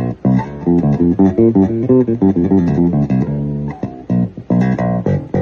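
Fernandes Revolver series electric bass played fingerstyle: quick runs of plucked notes, with a short pause midway.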